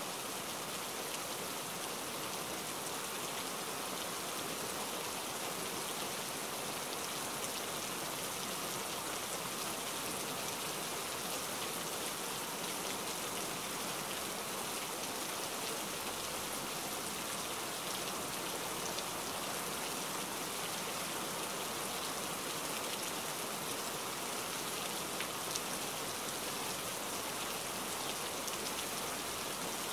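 Steady rain falling: an even hiss sprinkled with fine ticks of drops.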